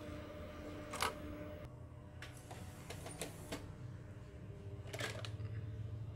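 Panasonic AU-65H MII video tape recorder's tape transport unloading and ejecting a cassette: a sharp mechanical click about a second in, a few lighter clicks, then a cluster of clicks about five seconds in as the cassette comes out, over a low steady hum.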